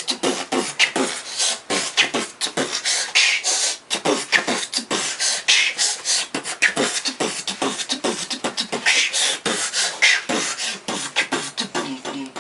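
A person beatboxing: a fast, uneven string of mouth-made clicks and kicks with hissing snare sounds.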